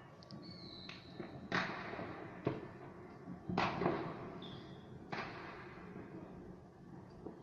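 Fireworks and firecrackers going off: four sharp, echoing bangs spaced about a second apart, with a short thin high whistle near the start and another just past the middle.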